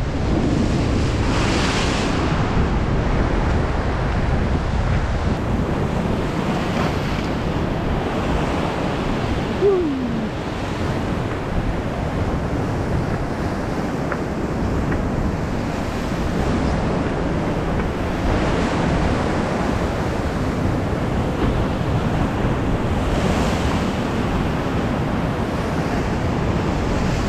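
North Sea surf from a 5–6 foot swell washing and breaking over rocks, rising and falling as waves come in, with wind buffeting the microphone.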